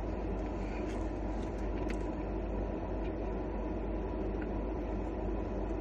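Steady low rumble and hum with a few faint clicks over it.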